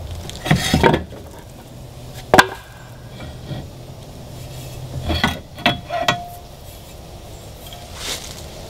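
A few scattered knocks and clunks as a stainless steel three-blade propeller is worked off an outboard's splined propeller shaft and the wooden 2x4 block that held it comes away. One sharp knock about two and a half seconds in is the loudest, and a few lighter clicks follow a few seconds later.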